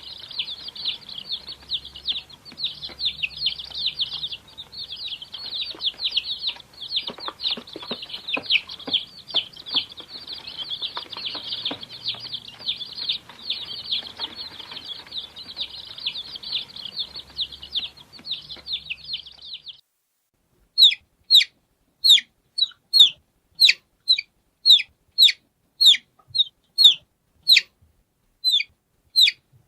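Many chicks peeping at once, a dense chorus of high overlapping peeps. About twenty seconds in it cuts to separate, short peeps that slide downward, about one or two a second, with silence between them.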